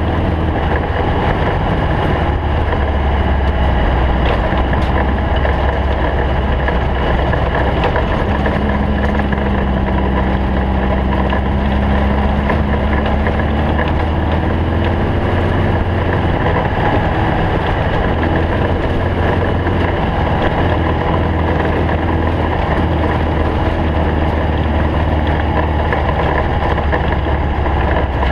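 Engine of a Stock Bug Volkswagen Beetle off-road race car running steadily, a loud constant rumble. A faint tone rises slightly in pitch about eight seconds in.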